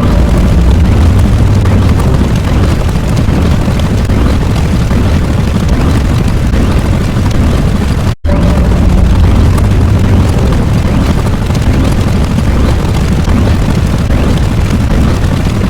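Loud, steady rumbling sound effect like a sustained explosion or eruption. It cuts out for an instant about eight seconds in as the same clip starts over.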